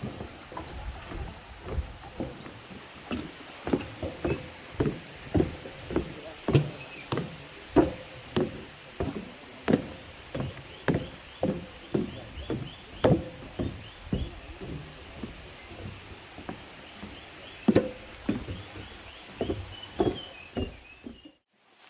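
Footsteps walking steadily down stairs, about two steps a second, each step a sharp knock. The steps stop abruptly near the end.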